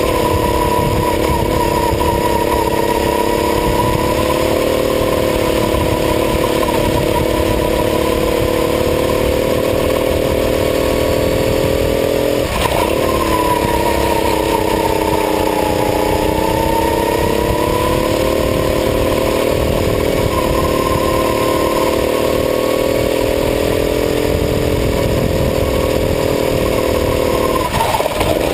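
Go-kart engine running hard at racing speed, its pitch rising and falling gently through the corners, with a low rumble underneath. The engine note drops sharply for a moment about halfway through and again near the end.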